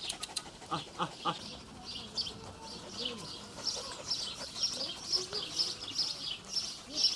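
Small songbirds chirping: many short, high chirps that come thicker in the second half.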